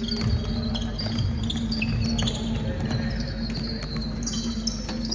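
A basketball being dribbled on a gym court during a game: repeated low thuds, with short high squeaks scattered throughout and a steady low hum underneath.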